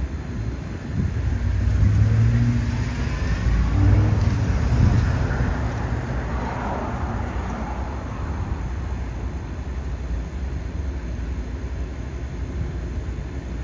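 A motor vehicle passing by, its engine and tyre noise loudest a few seconds in, then easing to a steady low rumble.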